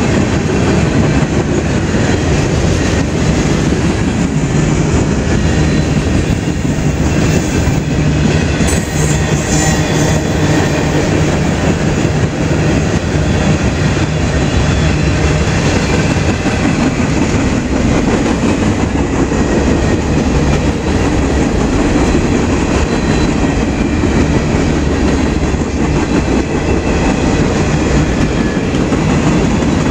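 Freight train cars rolling past on the rails, a loud, steady sound without a break.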